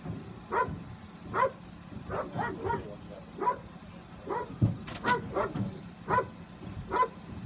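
Police dog barking repeatedly inside a patrol SUV, about a dozen short barks at uneven intervals. There is a single sharp tap about two-thirds of the way through.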